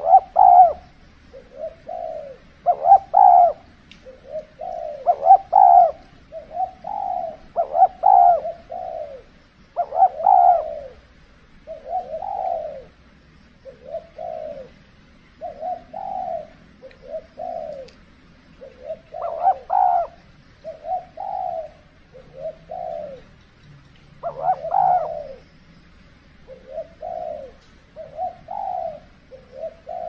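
Spotted doves cooing over and over, a short phrase every second or two, with some phrases louder than others.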